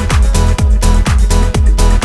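Electronic dance music with a steady kick drum, about two beats a second, under sustained synth notes.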